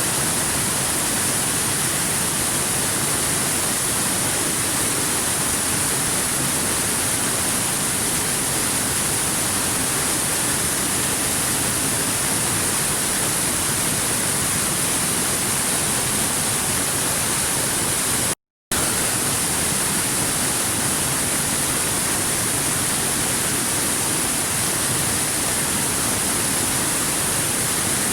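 Stream water flowing over rocks, a steady, even rush with no let-up, cutting out completely for a split second about two-thirds of the way through.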